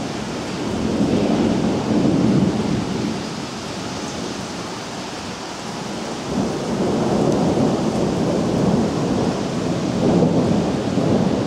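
Thunder rumbling in two long swells, the second longer, over steady heavy rain.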